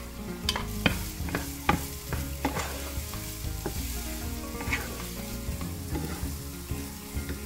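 Diced onion and scallions sizzling in oil in a nonstick frying pan as they are stirred with a wooden spoon, with a quick run of sharp taps and scrapes of the spoon in the first few seconds and one more a little after the middle.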